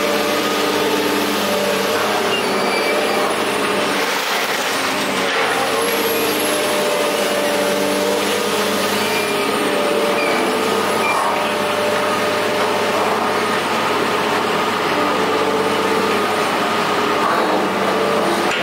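A motor vehicle or heavy machine engine running steadily, with a faint high whine that wavers up and down in pitch.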